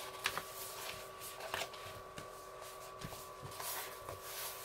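Crackling and rustling of a diamond painting canvas's plastic cover film as hands bend it over and press it flat, with a few short sharp crackles.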